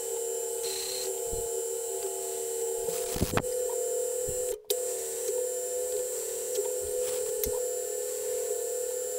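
Metal lathe running with its chuck spinning, a steady whine from the headstock drive. A few light clicks come about three seconds in, and the sound drops out briefly just past the middle.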